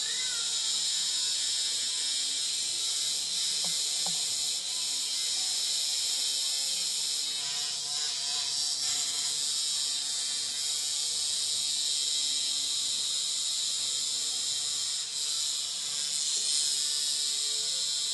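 Hexbug vibrating toy bug buzzing steadily as its little vibration motor drives it over a tiled floor.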